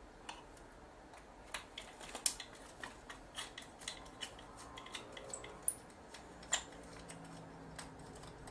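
Irregular small clicks and taps of a screwdriver and plastic and metal parts being handled as the LCD screen assembly of a Sony PMW-EX3 camcorder is taken apart, a few a second. A faint low hum comes in near the end.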